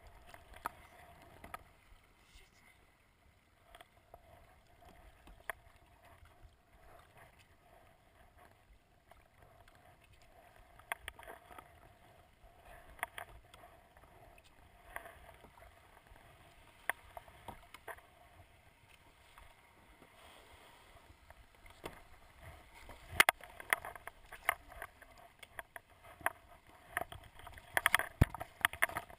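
Kayak paddle strokes splashing in the water, about one every two seconds, beside a plastic sit-on-top kayak. Near the end the splashes and knocks come louder and closer together as the kayak runs into shallow water over sand.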